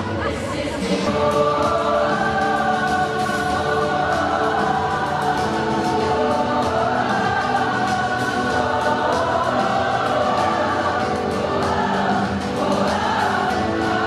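A large choir singing a pop song, with long held notes and a steady beat behind it.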